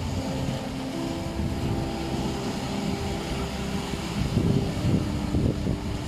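Sea waves surging and washing over a stony shore, with wind rumbling on the microphone and a surge about two-thirds of the way through. Soft meditation music with long held notes plays underneath.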